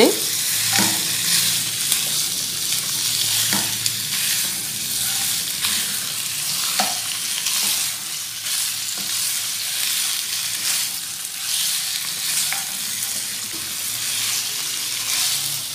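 Raw chicken pieces sizzling in hot oil in a nonstick wok on medium flame, with a steady frying hiss while a spatula stirs and turns them, giving a few sharp scrapes and knocks against the pan.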